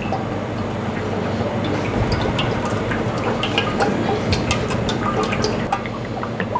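Olive oil poured in a thin stream from a large glass bottle into a metal stockpot: a steady trickle with many small irregular splashes and ticks.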